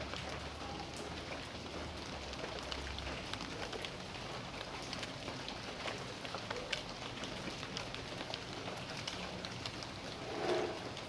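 Steady rain falling, with many separate drops ticking. About ten seconds in, a brief louder sound rises above the rain.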